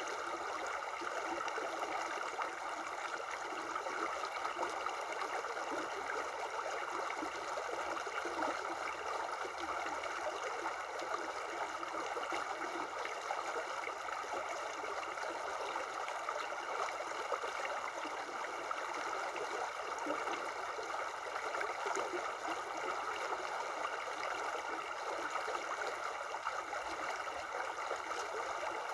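Shallow river running over rocks: a steady babbling of water.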